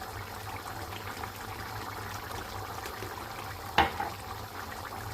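Chicken stew in coconut milk bubbling and simmering in the pan, a steady fine crackle over a low hum. A single sharp knock sounds a little before four seconds in.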